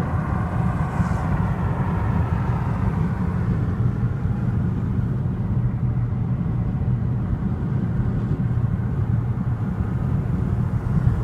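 Steady low road and engine rumble of a moving car, heard from inside.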